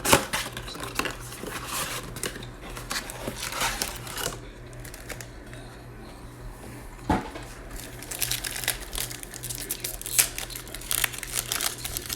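Crinkling and tearing of a plastic trading-card wrapper as a Panini Mosaic basketball box and pack is opened, with the rustle of cards being handled. There are sharp crackles near the start and about seven seconds in, and the crinkling grows busier in the last few seconds.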